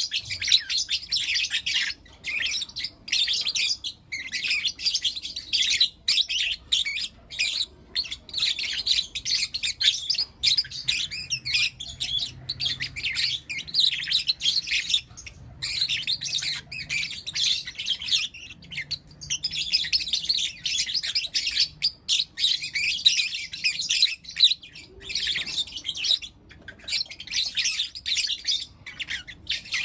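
Several young lutino lovebirds chirping: rapid, high, overlapping chirps that go on almost without a break, with only short pauses.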